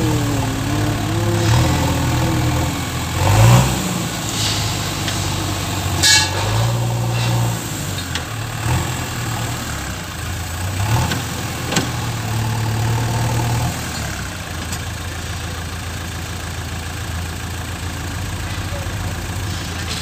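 A JCB 3DX backhoe loader's diesel engine runs steadily under hydraulic load, rising and falling in strength as the backhoe arm works the loaded bucket. A wavering whine sounds in the first few seconds, and a few sharp knocks come at intervals.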